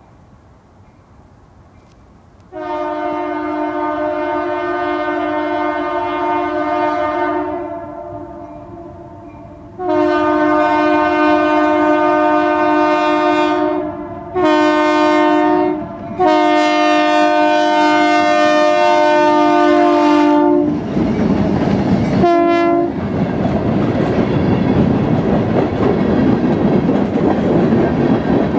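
Locomotive air horn blowing the grade-crossing signal of long, long, short and long blasts, each a steady multi-note chord, with a brief extra toot a little later. Then the train passes at about 35 mph, loud and steady, with its wheels clacking over the rail joints.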